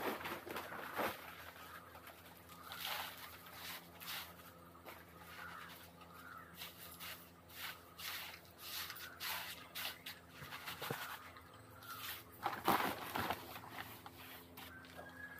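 Dry, loose material being scooped by hand from a plastic sack and poured out of a container: irregular rustling and scraping, loudest a little before the end, over a faint steady hum.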